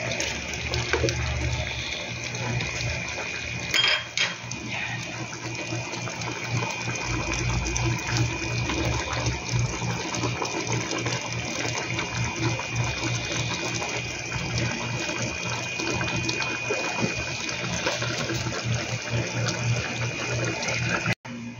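Shrimp curry in coconut milk bubbling steadily as it simmers in a pan, an even hissing, bubbling noise, with one brief knock about four seconds in.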